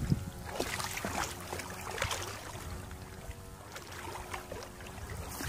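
Shallow, muddy rice-paddy water splashing and sloshing irregularly as hands grope through it and legs shift in the mud.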